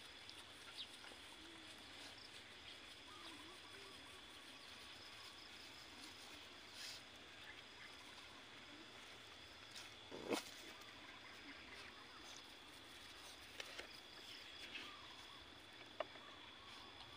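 Near-silent outdoor ambience with a faint steady high-pitched tone and the faint small clicks of puppies eating from a plastic bowl, with one short louder knock about ten seconds in.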